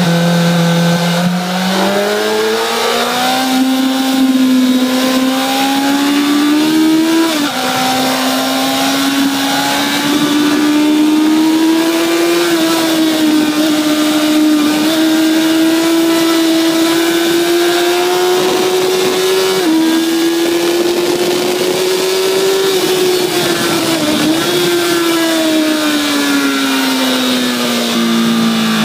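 Honda CBR1000RR's inline-four engine heard from on board, accelerating hard through the gears with wind rushing past. The revs climb from a low point, fall suddenly at two upshifts about 7 and 20 seconds in, then drop steadily from about 24 seconds in as the bike slows.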